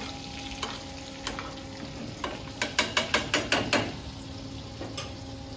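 Sirloin steak sizzling in foaming butter in a frying pan while it is basted with a spoon. About halfway through, a quick run of sharp metal clicks as the utensil knocks against the pan, with a few single clicks before and after.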